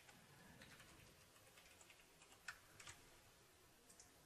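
Faint computer keyboard typing: a run of scattered key clicks, the loudest two coming about two and a half and three seconds in, and another click just before the end.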